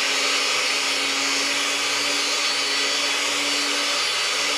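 Kitchen blender running at full speed: a loud, steady motor whine with a hiss of whirring blades.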